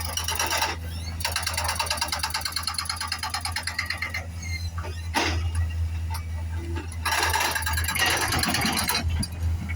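Backhoe's diesel engine running with a steady low drone, overlaid twice by long stretches of a rapid, high buzzing rattle.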